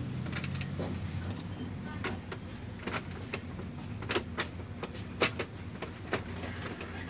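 Scattered sharp clicks and taps of a screwdriver and small parts against the plastic chassis of a Brother inkjet printer being taken apart, the loudest about five seconds in, over a steady low hum.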